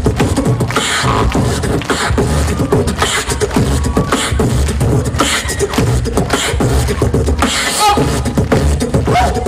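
Beatboxing into a handheld stage microphone: a steady rhythm of mouth-made bass-drum kicks with snare and hi-hat-like bursts on top.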